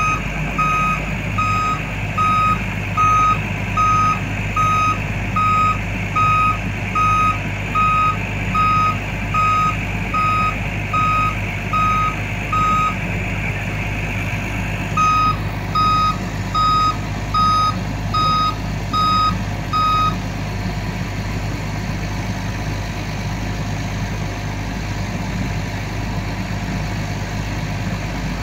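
A crane truck's diesel engine runs steadily while a backup-type warning beeper sounds about three times every two seconds. The beeping breaks off for a couple of seconds past the middle, resumes, then stops about two-thirds of the way through while the engine keeps running.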